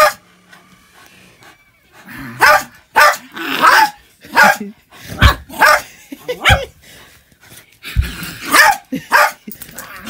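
Dog barking in rough play, about ten sharp barks at irregular intervals.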